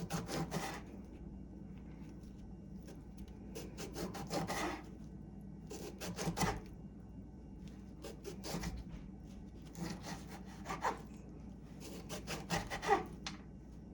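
Kitchen knife slicing a lemon into thin rounds on a cutting board, in several short bouts of sawing strokes with pauses between them.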